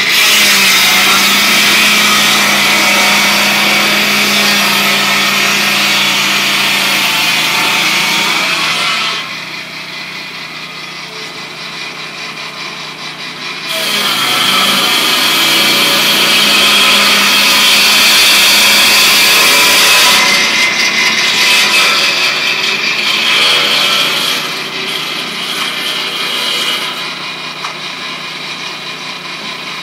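Lucas Mill portable swing-blade sawmill running, its circular saw blade cutting through a log. The sound drops away about nine seconds in, comes back loud about five seconds later, then eases off again in the last few seconds.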